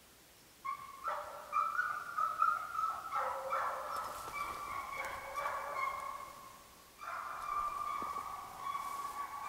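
Hamiltonstövare hound baying while chasing a hare, a continuous run of calls that starts under a second in, breaks off briefly about seven seconds in, then goes on.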